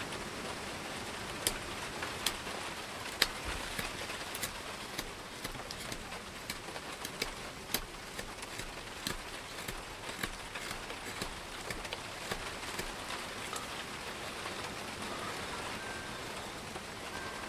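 Heavy rain falling steadily, with irregular sharp snicks of a Schrade SCHF42D knife cutting shavings from a wooden spatula blank.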